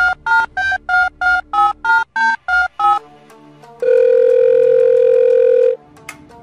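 Telephone keypad tones: about ten short two-note beeps in quick succession, like a number being dialled, followed about a second later by one steady tone lasting about two seconds.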